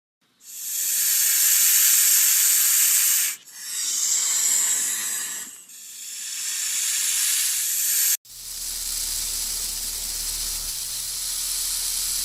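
Snake hissing in four long, loud bursts, the breaks between them coming every two to three seconds. A faint low hum sits under the last burst.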